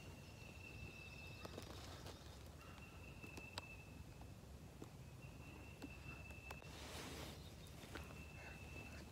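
A distant animal call: a high, even note held for about a second, repeated four times. A soft rustle like a step in leaves comes about seven seconds in.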